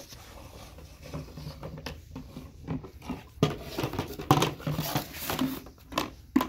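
Plastic bucket being pushed, tipped and bitten by a Labrador puppy on stone pavers: hollow plastic knocks and scrapes, sparse at first, then a busy run of sharp knocks in the second half, with the loudest knock near the end.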